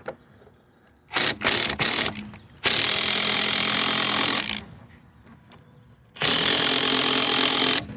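Handheld power tool run in a few short bursts about a second in, then in two longer steady runs of about two seconds and about a second and a half.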